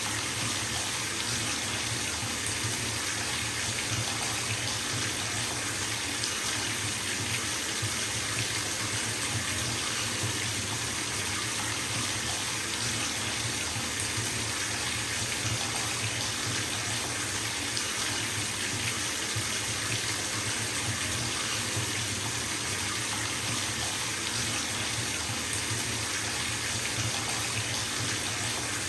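Bathtub filling from its tap: water running in a steady stream and splashing into the tub, an even hiss with a low rumble underneath.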